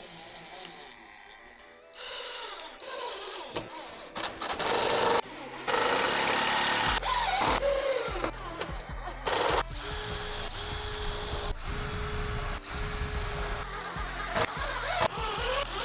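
Power tool running in short, abruptly cut snippets, with a steady whine in several short runs about two-thirds of the way through, mixed with background music.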